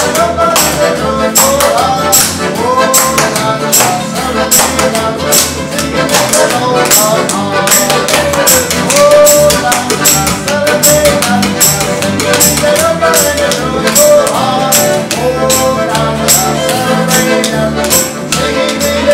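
Acoustic folk jam: accordion and violin playing a melody over a steady percussive beat.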